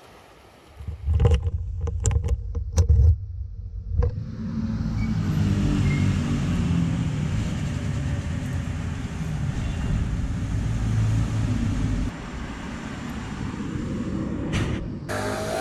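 A few loud knocks and clicks of handling in the first seconds, then a Vespa GT 125 L scooter's engine running steadily, a little quieter near the end.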